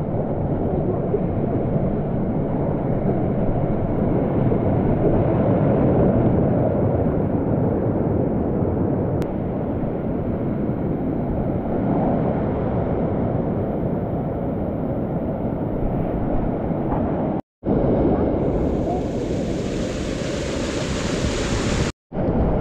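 Steady rush of a mountain torrent's water in the canyon. The sound cuts out briefly twice, and from about three quarters of the way in it turns to a brighter, hissier spray of falling water.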